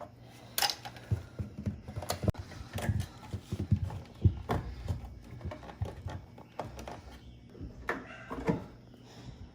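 Irregular knocks and clicks as an electrical box is worked open, its knockouts tapped and pried out so wires can be run through.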